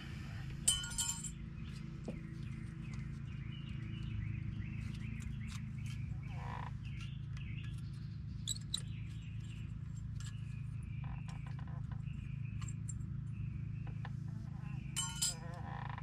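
Small metal parts and a screwdriver clinking and rattling as brake caliper hardware is handled, with the sharpest clinks about a second in and near the end, over a steady low hum.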